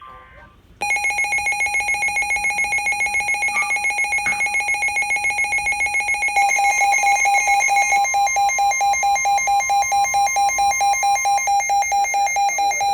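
Emergency alert alarm tone: a loud, buzzy electronic tone pulsing rapidly, about eight times a second, starting about a second in. Around halfway through it thickens, with a second, higher tone joining, and it gets a little louder.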